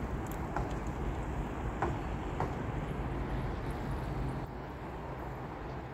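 Steady outdoor background rumble and hiss, with a few faint clicks in the first half; it gets slightly quieter about four and a half seconds in.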